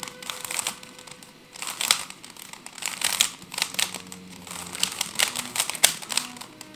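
Plastic 3x3 Rubik's cube being turned by hand, its layers clicking and clattering in quick bursts of turns with short pauses between.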